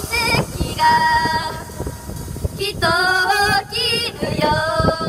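Young women's voices singing a Japanese idol pop song through microphones and a PA, holding notes with vibrato in several phrases, over a backing track with a beat.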